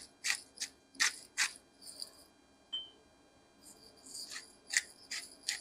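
Salt and pepper being added to a saucepan of sauce: a string of short, dry rasping strokes in two clusters, a few in the first second or so and a quicker run from a little before the fourth second.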